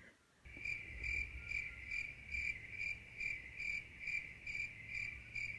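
A cricket-chirp sound effect: a single high cricket chirping in evenly spaced chirps about twice a second, starting about half a second in over a faint low hum. It is the classic "crickets" gag for an awkward silence when nobody answers.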